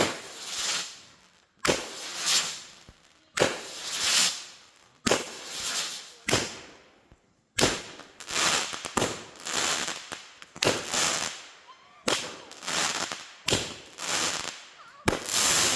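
Consumer firework cake ("the Raptor") firing a string of shots. Each is a sharp bang followed by about a second of crackling hiss. The shots come roughly every second and a half at first, faster after about eight seconds, and run into dense, continuous crackling near the end.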